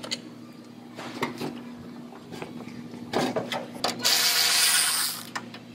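Cordless electric ratchet running in short bursts as it spins out door hinge bolts. The longest run, just over a second, comes about four seconds in, with light clicks and metal rattles between.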